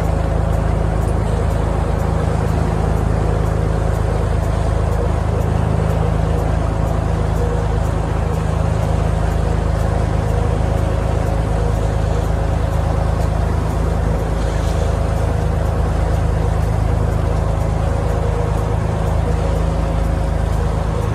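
A cruise boat under way: its engine drones steadily under the rush of water along the hull, with no change in pace.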